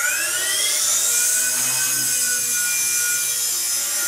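WLtoys V988 Power Star 2 micro RC helicopter's electric motors and fixed-pitch rotor spooling up for takeoff: a whine that rises for about the first second, then holds steady with a high rotor hiss as it lifts off and flies.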